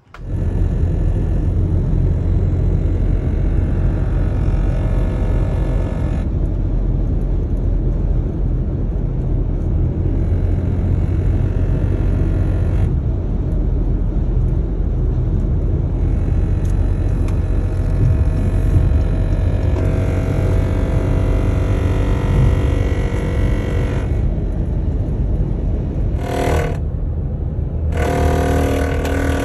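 Steady low rumble of a car on the move, made of several clips cut together.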